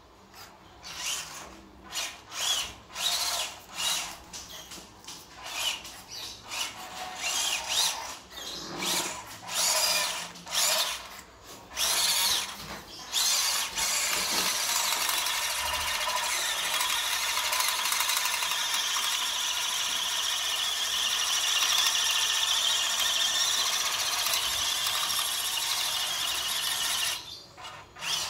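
WPL B-1 RC truck's small electric motor and gearbox whining in short on-off throttle bursts, then running without a break for about thirteen seconds as it drives up a sand and gravel slope.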